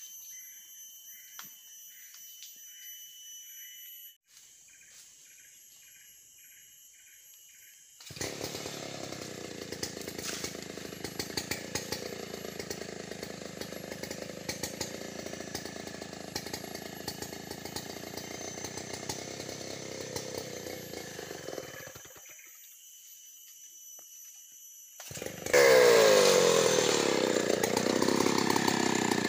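Insects chirring in a rhythm, then a chainsaw running steadily at a distance for about fourteen seconds. After a few seconds' lull, a two-stroke chainsaw starts up close by near the end and revs up and down loudly.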